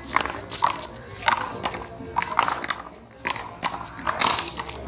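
Handball rally: the small rubber ball slapped by gloved hands and smacking off the concrete wall, with sharp, irregular smacks about every half second.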